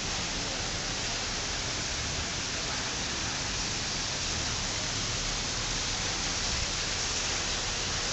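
Steady, even hiss of outdoor background noise with no distinct event.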